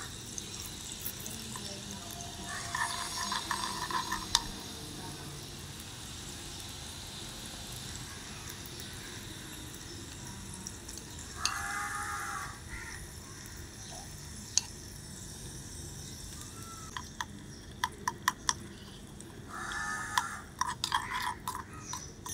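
Food sizzling quietly in a miniature pan, with a steady low hiss, sharp clicks of a small utensil against the pot near the end, and three short voice-like calls in the background.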